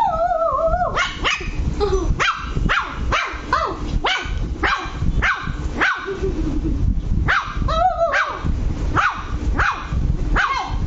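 Lhasa Apso puppy barking angrily: a rapid, continuous string of short, high yappy barks, two to three a second, broken by a longer wavering cry near the start and again about eight seconds in.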